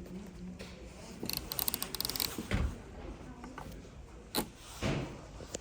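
Washing machine's program selector dial being turned, a quick run of detent clicks, followed by a dull knock and two sharper clicks from its controls.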